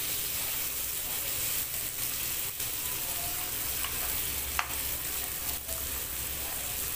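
Mutton chops sizzling steadily as they fry in oil in a kadhai over a very low flame, with a utensil stirring them in the pan and one sharp click a little past halfway.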